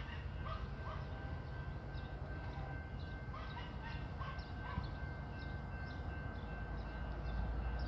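Small birds chirping in short, repeated calls, thickest about three to five seconds in, over a low steady background rumble.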